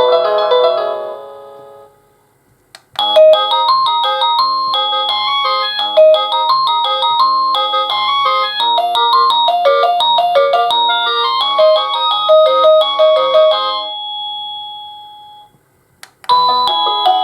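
Avantek D-3B wireless doorbell receiver playing its electronic chime tunes one after another. One tune fades out, a click follows, then a melody of quick stepped notes runs for about eleven seconds and ends on a held note that fades away. After another click the next tune starts near the end.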